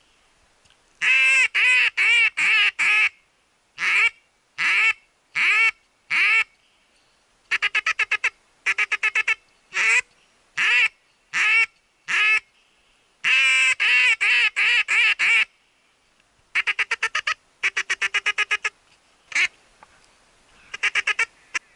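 Duck quacking: loud quacks in runs of four or five, single quacks a little under a second apart, and several quick chattering runs, with near-silent pauses between the runs.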